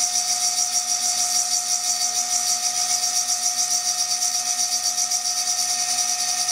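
CNC milling machine's high-speed spindle whining steadily while its sharp reground cutter engraves the glass of a beer bottle, a high-pitched tone over a hiss.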